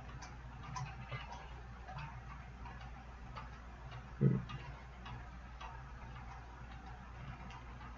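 Faint, regular ticking, about two ticks a second, over a low steady hum, with a single dull thump a little past four seconds in.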